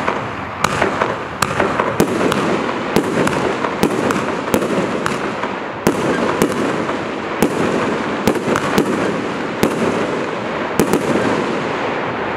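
Retail firework firing a rapid series of shots: sharp bangs about twice a second over a continuous dense rush of noise.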